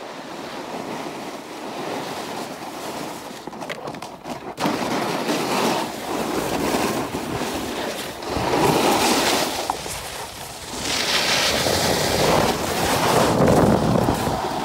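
Snowboards sliding and scraping over packed snow, mixed with wind rushing over a phone microphone; the noise swells and eases as the riders carve, with a sudden change about four and a half seconds in.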